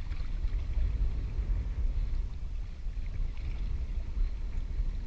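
Wind rumbling on the microphone and choppy water against a kayak, a steady, uneven low rumble.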